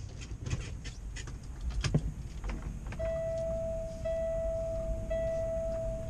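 Clicks and knocks of the driver moving in a truck cab, then, about halfway through, the dash warning buzzer of a 2012 Kenworth W900L comes on: a steady high beep repeating about once a second, the key-on alarm before the Cummins ISX is cranked.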